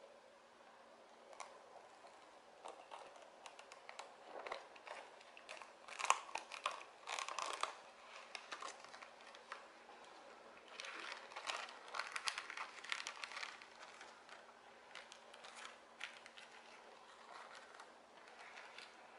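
Cellophane wrap being picked loose and peeled off a small cardboard box, crinkling and crackling under the fingers in irregular bursts, loudest about six seconds in and again around eleven to thirteen seconds.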